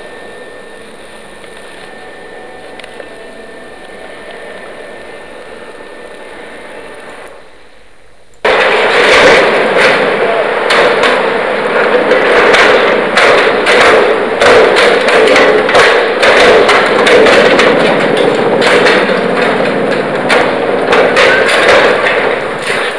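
A low, steady hum; then, suddenly about eight seconds in, loud continuous demolition noise with frequent bangs and clatters as corrugated metal cladding is stripped from a building.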